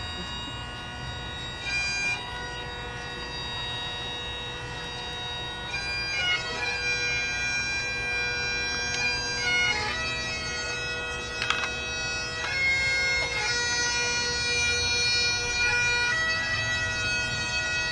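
Bagpipes playing a slow tune: melody notes change every few seconds over a steady, unbroken drone.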